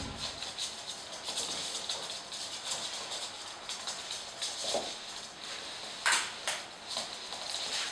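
Flat microfibre mop swishing across a wooden floor, with the Jack Russell terrier puppies' claws clicking on the boards as they scamper after it. A sharper scuff comes about six seconds in.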